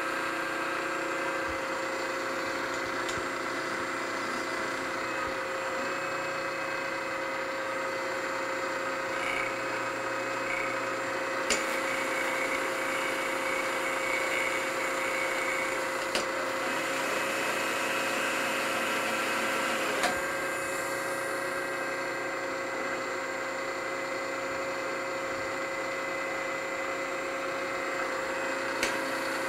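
Milling machine spindle running steadily as a 3/4-inch four-flute high-speed steel end mill takes a facing cut across the top of a metal engine-base part. A few short sharp clicks come through.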